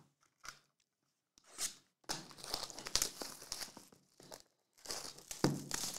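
Plastic shrink wrap being torn and peeled off sealed trading card boxes, crinkling and crackling in two long stretches, one starting about two seconds in and one about five seconds in.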